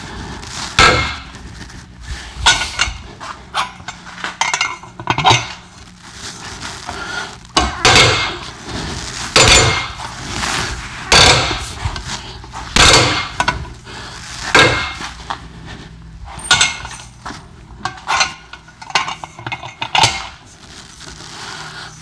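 Breaker bar cranking the forcing screw of a hub puller against a seized rear hub, giving irregular metallic clanks and creaks, about one every second or two, as the puller strains under load.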